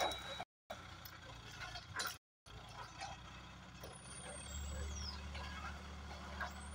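Hydra mobile crane's diesel engine running with a steady low drone, which grows louder about four and a half seconds in. A light knock sounds about two seconds in, and the sound cuts out briefly twice in the first few seconds.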